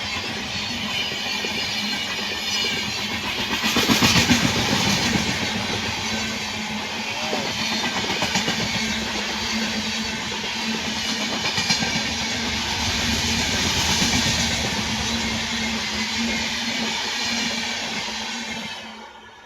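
An Indian Railways train running along the track: a steady rumble and clatter of wheels on the rails under a constant low hum. It swells about four seconds in and again later, then cuts off near the end.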